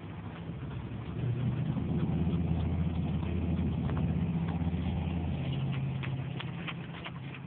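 A motor vehicle going past, its low engine hum swelling from about a second in and fading away after the middle.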